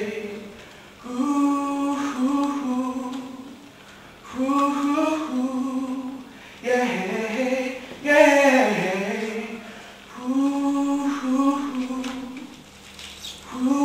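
Unaccompanied solo voice singing slow sustained phrases, each about two seconds long with short breaths between. Several phrases end in a downward slide.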